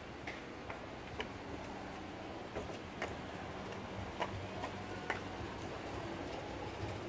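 Footsteps on a paved street, a light click every half second or so with short gaps, over a low steady hum of street noise.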